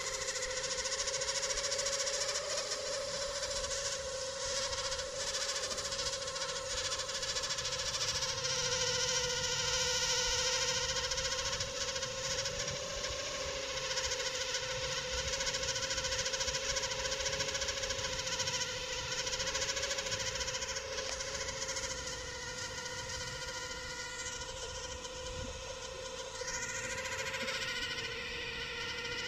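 Home-built quadcopter drone hovering overhead: a steady whine from its motors and propellers, its pitch wavering slightly as it holds position.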